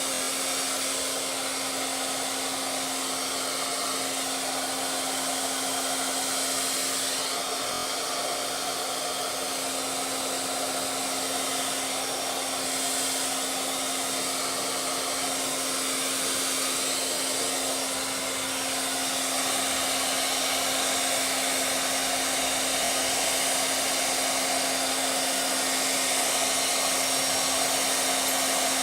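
Handheld hair dryer running continuously, a steady rush of blown air with a steady hum under it.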